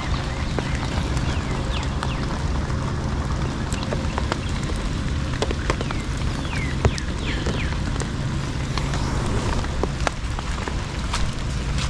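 Steady hard rain falling, with scattered drops ticking sharply close by.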